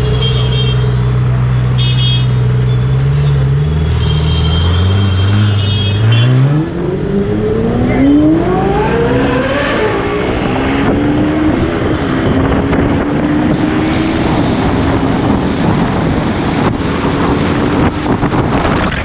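Engines idling low in slow city traffic, with a few short horn beeps. About six seconds in, an engine revs up in a long rising sweep as traffic pulls away, then settles into a steady engine note under wind rushing over the moving camera.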